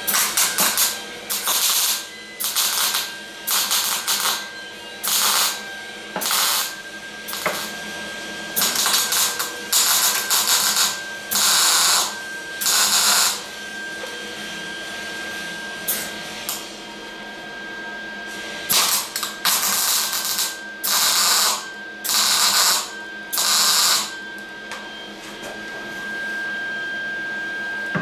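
MIG welder laying short plug welds through drilled holes to fix a new door skin to the door frame: about sixteen separate bursts of arc noise, each under a second, in two runs with a pause of several seconds between them. A faint steady high tone runs underneath.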